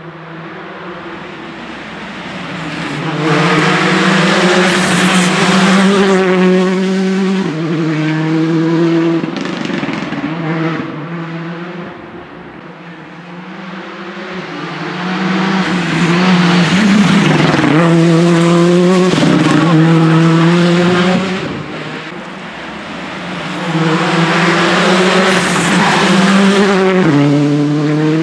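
Hyundai i20 R5 rally car's 1.6-litre turbocharged four-cylinder engine driven hard, its pitch climbing and then dropping back at each quick gear change. It swells and fades three times as the car works along the stage.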